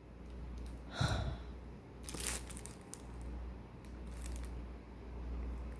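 Packaging being handled during unboxing: a soft thump with a brief rustle about a second in, then a few light rustles and clicks, over a steady low hum.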